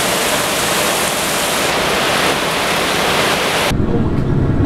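A loud, steady rushing hiss that cuts off sharply about three-quarters of the way through. It gives way to the low rumble of a train in motion.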